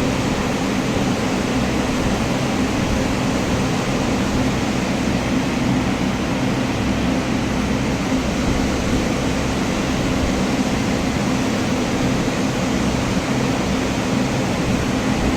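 Ford Ranger engine idling with a knock, running steadily throughout.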